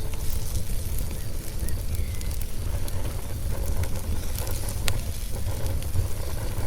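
Wood fire crackling in a fireplace: scattered sharp pops, the strongest about five seconds in, over a steady low rumble.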